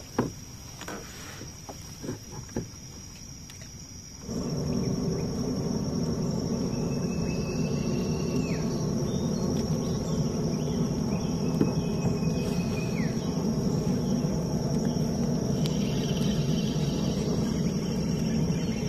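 Insects chirring steadily, with a few light knocks in the first few seconds. About four seconds in, a louder steady low rumble sets in under the chirring, and two held whistling tones, each dropping in pitch at its end, come a few seconds apart.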